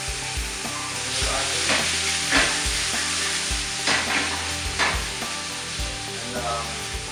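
Rump steak searing in olive oil in a very hot frying pan: a steady sizzle with several louder crackles and spits.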